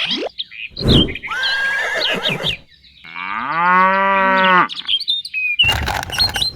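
A cow mooing once, a long call that rises at the start and then holds steady for about a second and a half, among quick bird-like chirps. A thump comes about a second in.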